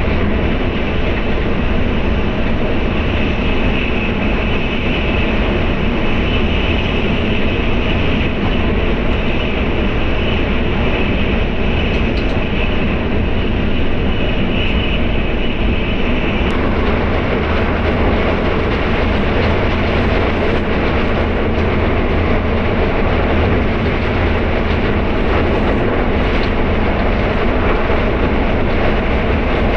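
Tokaido Shinkansen bullet train running at speed, heard from inside the passenger cabin: a continuous low rumble with a rushing hiss. About halfway through, the noise changes character and a brighter, higher hiss comes in.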